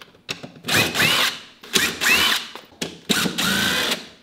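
Cordless drill run three times in short spurts, its motor pitch winding up and back down each time, as it backs screws out of the lid of a plywood shipping crate.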